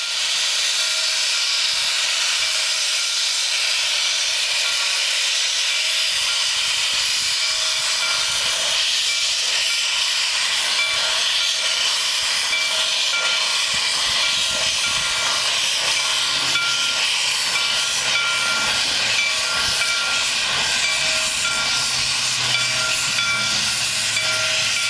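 Steam locomotive venting steam low beside its wheels with a steady, loud hiss as it moves slowly away, a faint low rumble joining in about two-thirds of the way in.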